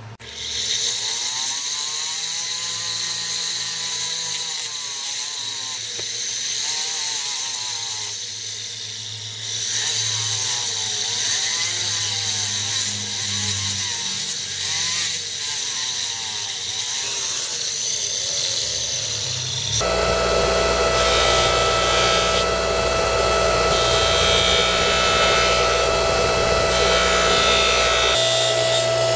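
A jeweller's rotary tool running, its spinning bit grinding and finishing a small metal hexagram pendant. About two-thirds of the way through it gives way to a bench polishing motor running steadily with a constant tone as the pendant is held to its buffing wheel.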